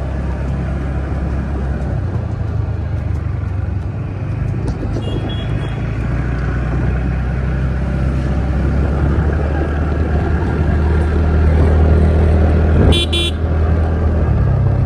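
Motorbike riding along a dirt road: a steady low engine and wind drone that grows louder as it picks up speed, with a short horn beep about 13 seconds in.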